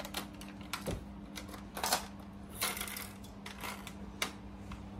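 A handful of irregular plastic clicks and knocks from a cordless power tool's battery pack being worked in its mount, where it sits loose. A steady low hum runs underneath.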